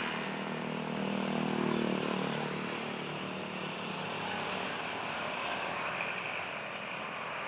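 Large bus passing close by: an engine drone for the first couple of seconds, fading into steady road and wind noise.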